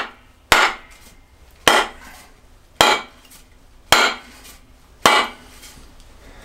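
Wooden mallet striking the end of an oak axe handle, about six blows a little over a second apart, each a short sharp knock. The head hangs below the handle, so each blow drives the handle deeper into the axe eye.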